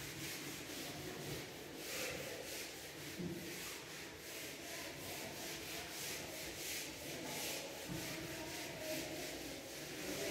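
Handheld whiteboard eraser rubbing marker off a whiteboard in quick back-and-forth strokes, about three a second, each a dry swishing rub.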